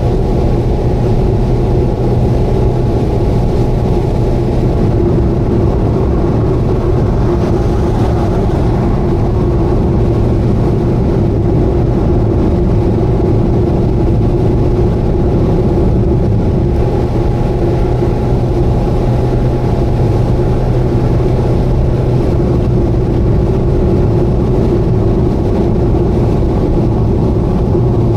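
Subaru Vivio KK3 kei car running at a steady highway cruise, a constant engine and road hum that holds the same pitch and level throughout.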